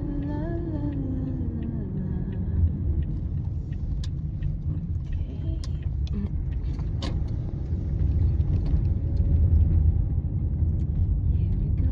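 Car driving, heard from inside the cabin: a steady low rumble of engine and road noise that grows louder about eight seconds in, with a few sharp clicks.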